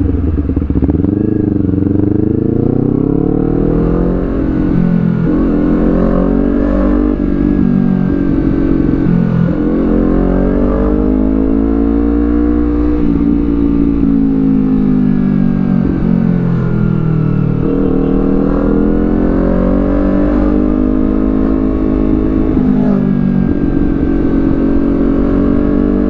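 Honda CBR250RR parallel-twin engine, fitted with a Villan Z2 carbon exhaust, running on the road. The revs climb and drop again and again as the bike accelerates, shifts gears and rolls off.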